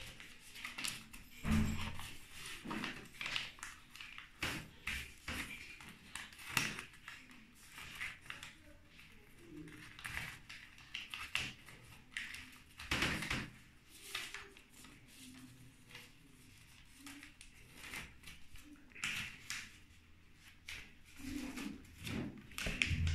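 A sheet of paper being folded and creased by hand on a wooden desk: irregular rustles and crinkles, with soft taps as the folds are pressed flat.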